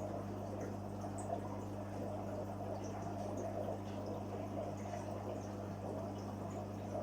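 Water in a koi fry tank bubbling and trickling steadily over a constant low hum from the tank's pump, with faint scattered drips.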